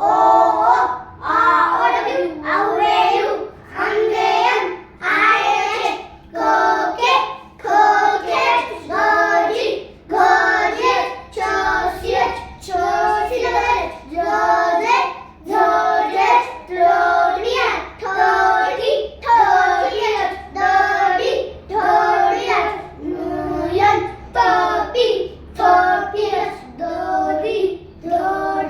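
Young children chanting the Devanagari swar and vyanjan (vowels and consonants) with their spellings in a regular sing-song recitation, short phrases of about a second each with brief pauses between.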